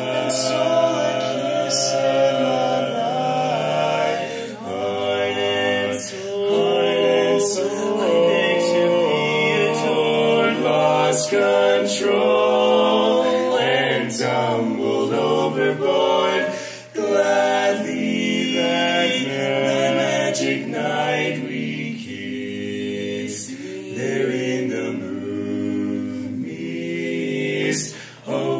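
Vocal quartet singing a cappella in close four-part harmony, with sustained chords. The sound drops out briefly about seventeen seconds in and again near the end.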